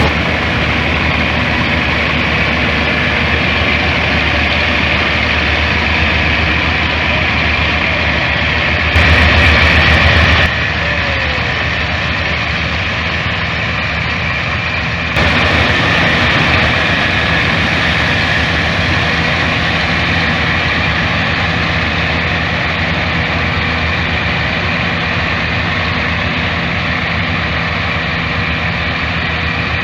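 Combine harvester running steadily with a continuous engine and machinery noise. The sound jumps abruptly in level about nine seconds in, drops back a second and a half later, and rises again about fifteen seconds in.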